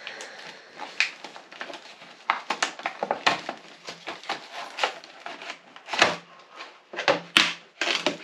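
Accessory packaging being opened and handled by hand: irregular crinkling and clicking, with a few sharper snaps near the end.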